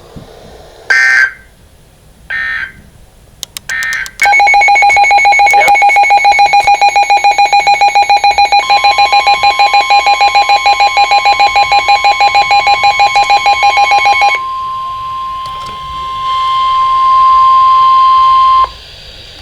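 Emergency Alert System tones between two severe thunderstorm warnings. Three short bursts of screeching data tones come first. Then a loud, rapidly pulsing two-tone alert signal plays for about ten seconds, with a steady single-pitch alert tone joining partway and holding on alone for about four seconds after the pulsing stops.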